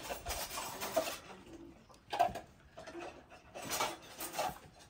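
Bird calls: several short calls, a low dove-like coo among them.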